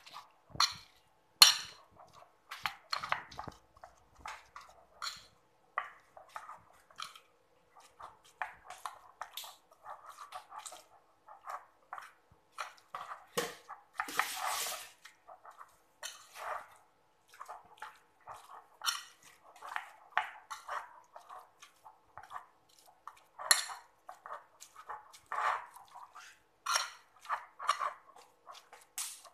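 Metal spoon scraping and clinking against a ceramic plate in irregular short strokes as a pounded sambal paste is stirred and pressed, with one longer scrape about halfway through.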